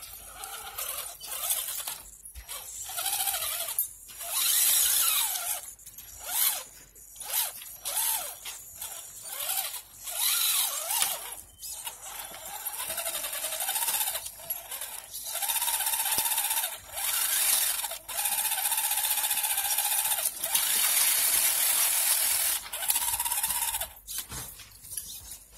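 Axial SCX10.2 RC rock crawler's electric motor and geared drivetrain whining as it crawls over snowy rocks. The whine comes in stop-start bursts, some several seconds long, its pitch rising and falling with the throttle.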